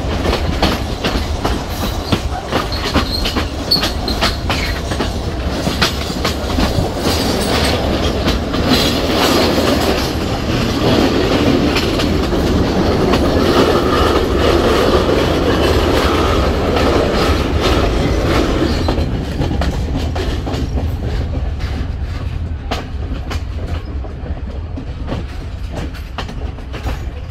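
Passenger train running along the track, heard from on board: wheels clicking over rail joints over a steady rumble and rattle of the carriages. It grows louder in the middle and eases off in the last third.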